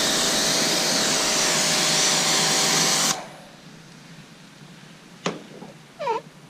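Kranzle 1122TST pressure washer running with its spray hissing loudly over a steady motor hum, cutting off suddenly about three seconds in when the trigger is let go. A sharp click follows about five seconds in, then a short chirp.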